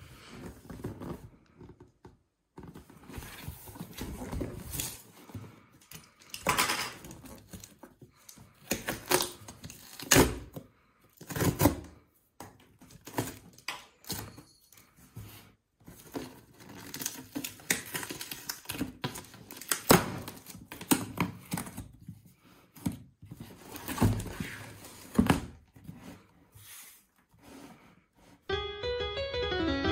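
Cardboard shipping box being handled and opened: irregular taps, thunks and scrapes, with ripping as a tear strip and packing tape are pulled off. Piano music starts near the end.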